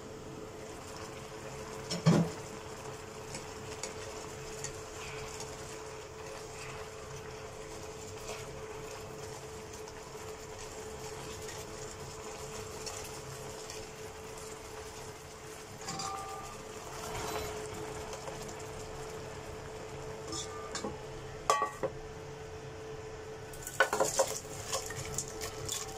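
Cookware handling: a glass pot lid is lifted off with a clank about two seconds in, then a spatula stirs and scrapes chicken wing tips in a sauce-filled nonstick pan. Near the end there are sharp clinks as the wings are scooped into a rice cooker's metal inner pot, all over a steady hum.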